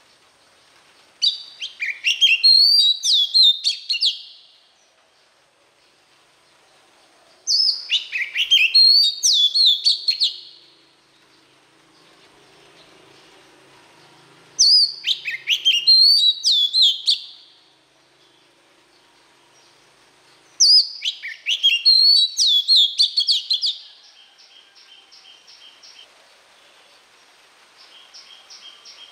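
Oriental magpie-robin singing: four loud, varied whistled phrases of about three seconds each, separated by pauses of several seconds. After the last phrase comes a softer run of quick, repeated chattering notes.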